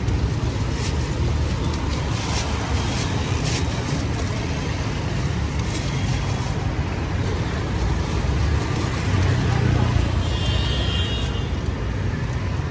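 Steady low rumble of road traffic, with a few light crackles in the first few seconds from an egg frying in oil in a wok.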